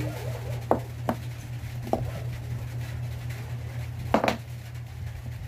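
Small clicks and taps from a lipstick tube being handled and opened, with a louder double click about four seconds in as it is brought to the lips. A steady low hum runs underneath.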